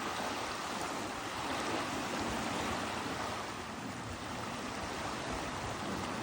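Steady rushing noise of lakeside water and wind, with no distinct calls or events.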